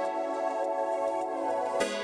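Background music: slow, sustained keyboard tones, with a new note struck near the end.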